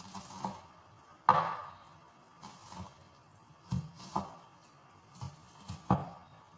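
Knife cutting an onion on a cutting board: a run of about ten sharp, unevenly spaced chops, the loudest a little over a second in.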